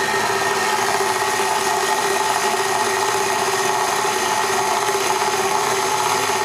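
KitchenAid stand mixer running steadily with its dough hook, mixing marshmallow and powdered sugar into fondant: an even motor hum with several steady tones.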